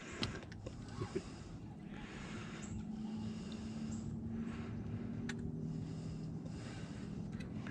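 A faint steady engine hum, two low tones held level for several seconds, over a background hiss, with a few light clicks.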